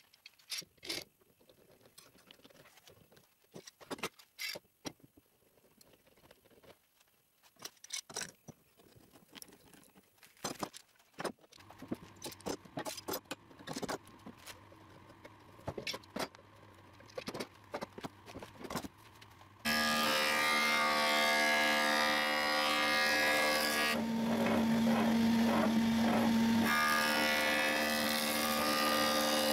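Steel bar clamps handled and tightened on glued oak parts: scattered clicks and knocks. About two-thirds of the way through, a stationary woodworking machine with a vertical spindle cuts in abruptly, running loud and steady. Its sound changes for a couple of seconds as an oak leg is pressed against the spindle.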